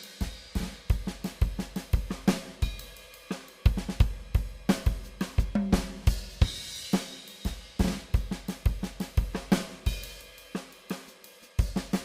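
Background music: a song with a steady drum-kit beat of kick, snare and hi-hat.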